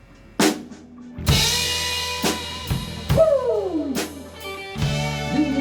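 A live rock band starts a ballad: a single drum hit, then drums, bass and cymbal crash in together with sustained chords. Near the middle a pitched line slides down, and about a second before the end the drums and bass come back in with full force.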